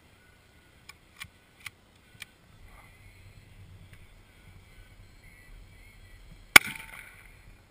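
A single shot from a Mosin-Nagant bolt-action rifle about six and a half seconds in, very loud and sharp, with a short ringing tail. Before it come four faint clicks in the first two seconds.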